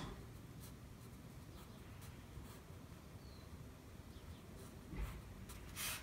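Pencil scratching faintly on paper in short, irregular strokes as a small sketch is drawn.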